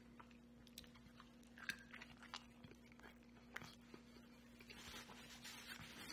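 Faint close-up chewing of a mouthful of burrito with the mouth closed: scattered soft wet clicks and small crunches, over a steady low hum.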